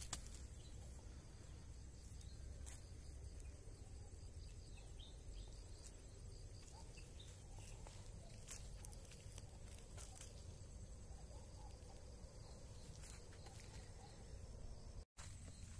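Quiet outdoor ambience: a steady low rumble, typical of wind on the microphone, with a few faint clicks and soft distant calls; the sound drops out completely for a moment near the end.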